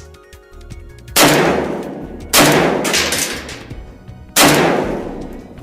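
Three rifle shots from a Zastava O-PAP, an AK-pattern rifle in 7.62x39, the second about a second after the first and the third about two seconds later, each ringing out and fading. Background music plays underneath.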